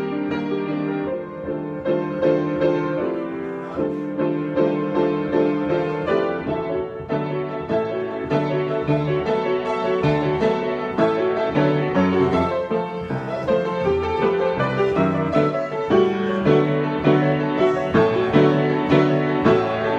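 Solo piano improvisation: sustained chords with a melody over them, the notes growing busier and more rhythmic partway through.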